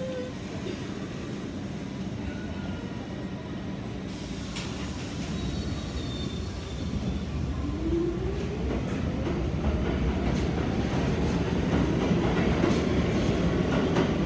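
New York City subway train running along the track past the platform, with a steady rumble and rail clatter. About seven seconds in, a short whine rises in pitch, and the train grows louder toward the end.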